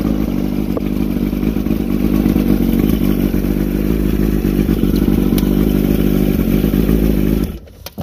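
Mercury 80 hp inline-four two-stroke outboard engine running steadily, then stopping abruptly near the end.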